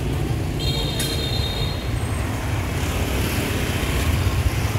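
Motorbike riding through street traffic: a steady low engine and road rumble, with a brief high squeal lasting about a second and a half, starting about half a second in.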